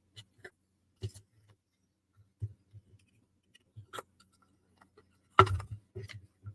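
Irregular light clicks and taps of small wooden puzzle-box parts being handled and fitted together, with the loudest knock about five seconds in.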